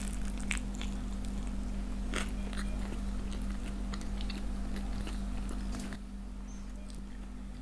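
A person biting into and chewing a sesame-seed-bun chicken burger: scattered soft crunches and wet mouth sounds, over a steady low hum.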